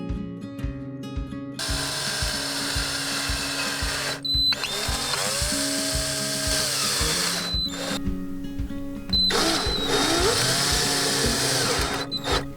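Power drill running in three bursts of a few seconds each, its motor whine rising and falling in pitch, over background music with a steady beat.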